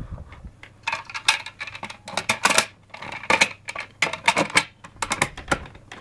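Hard plastic parts of a Hoover Purepower vacuum cleaner handled by hand, with irregular clicks, knocks and rattles; the machine is not running.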